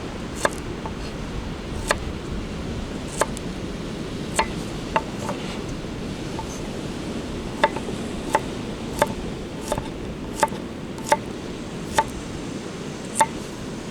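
Knife slicing garlic cloves on a cutting board: single sharp taps of the blade on the board, spaced unevenly at first and then coming about once every three-quarters of a second, over a steady background rush.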